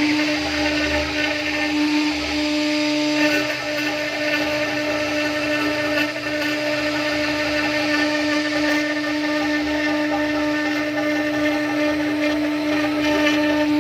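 STYLECNC STG1224 CNC router's spindle running with a steady, even-pitched whine, with an uneven low rumble that comes and goes beneath it.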